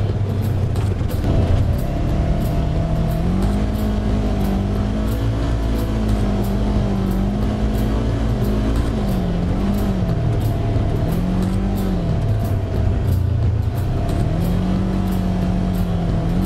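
Side-by-side UTV engine running under way, its pitch rising and falling as the throttle is opened and eased, over a steady rush of tyre and wind noise.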